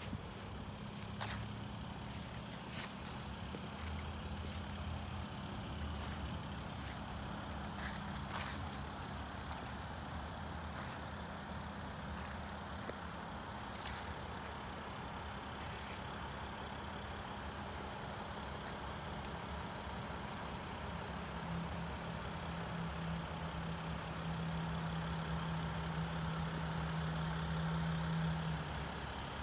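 Mercedes-Benz Sprinter 4x4 van's engine idling with a steady low hum, growing louder in the last several seconds and cutting off shortly before the end.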